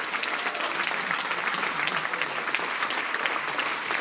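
Audience applauding steadily, a dense mass of clapping.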